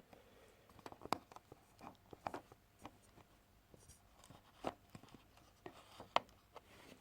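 Faint handling noise from a camera being set down and adjusted: scattered light clicks, taps and scrapes, with a few sharper ticks about a second in and near the end.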